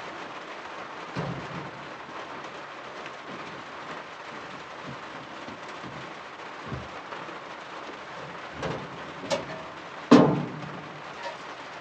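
Steady rain hiss, with a few metal knocks and clanks as the smoker's water pan and wood-chip tray are handled. The loudest clank comes about ten seconds in and rings briefly.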